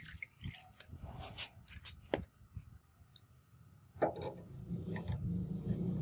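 Hand work on a workpiece: rubbing and scraping with scattered light clicks and knocks. About four seconds in there is a sharper knock, and a low steady hum sets in.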